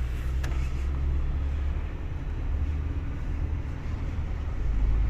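Steady low road and engine rumble inside the cabin of a moving Honda City, with one sharp click about half a second in.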